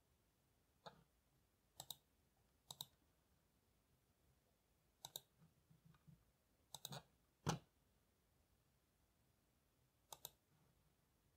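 Faint computer mouse clicks, scattered singles and quick double clicks, the loudest about seven and a half seconds in.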